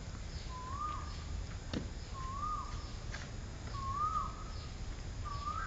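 A bird calling over and over, four short rising-and-falling notes about a second and a half apart, over a steady background hiss. There is a single click a little under two seconds in.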